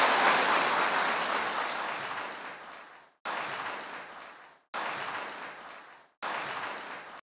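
Audience applauding, fading out over about three seconds. The same applause then starts abruptly and fades away three more times in short, clipped stretches.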